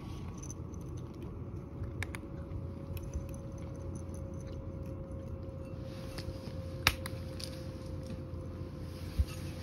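A cat eating from a ceramic bowl: scattered small clicks and ticks of chewing and of the bowl, with one sharper click about seven seconds in and a low knock near the end, over a steady low hum.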